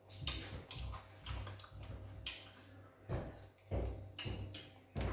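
Close eating sounds of people eating fufu with egusi soup: wet chewing, lip smacks and small clicks coming in an irregular run of short bursts.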